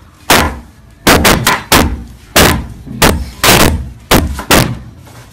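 Kitchen knife chopping a red onion on a cutting board: sharp knocks of the blade striking the board, about two a second at an uneven pace.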